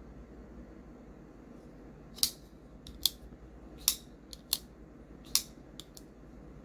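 Sharp metallic clicks of a TRM Shadow folding knife being worked open and closed with its thumbstuds, the blade snapping into place. About eight clicks, irregularly spaced, starting about two seconds in.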